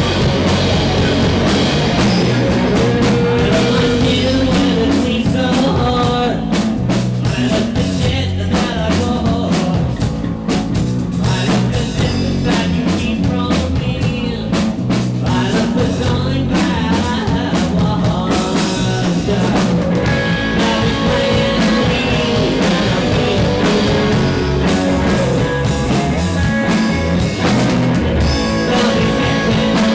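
Live rock band playing loudly: distorted electric guitar, electric bass and drum kit, with a man singing lead into the microphone.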